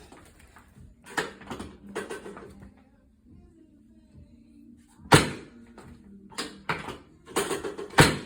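Thuds and knocks from a chiropractic adjustment being given. The loudest is a single sharp thump about five seconds in, followed by several quicker knocks in the last two seconds.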